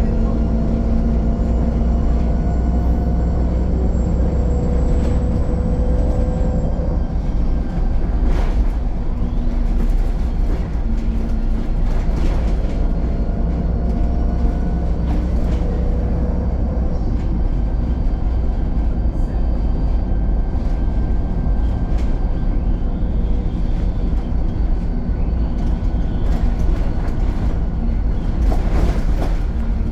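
VDL SB200 single-decker bus in motion: a steady engine and road rumble with whining tones that shift slightly in pitch, and a few sharp rattles and knocks.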